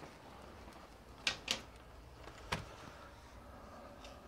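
Three short, sharp knocks from objects being handled, two close together about a second in and a third about a second later, over a faint steady hum.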